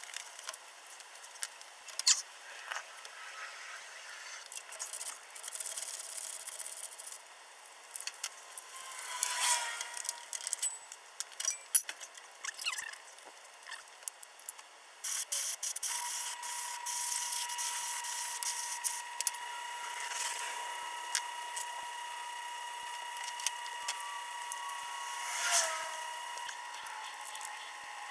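Fast-forwarded, pitched-up workshop sounds of work on a car interior: rapid clicks, knocks and scrapes of hand tools and parts. From about 16 seconds in, a steady high whine joins them.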